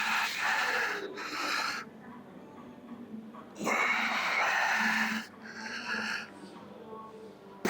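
A man breathing hard through a weightlifting set: a forceful exhale followed by a shorter breath, repeated about every three and a half seconds.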